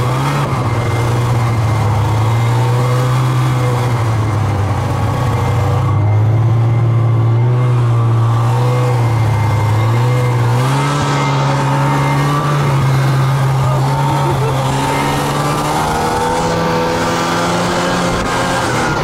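Snowmobile engine running under way, its pitch rising and falling with the throttle, stepping up about halfway through and climbing again near the end.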